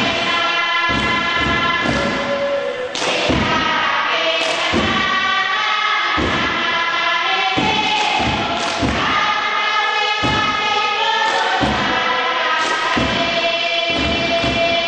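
A group of voices singing a chant-like song together, over heavy thumps that keep the beat about once or twice a second.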